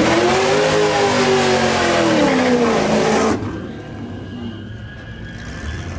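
A car doing a burnout: the engine is held at high revs, its pitch rising and then sagging, over the noise of spinning tires. It cuts off abruptly a little over three seconds in, leaving a much quieter engine rumble.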